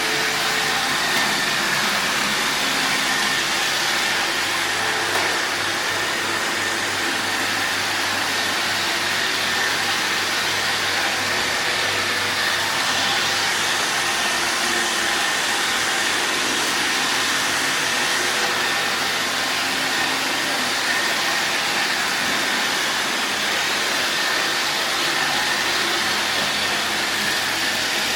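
Robot vacuum cleaner running steadily: the constant whir of its suction fan and brushes, with a thin high whine held throughout.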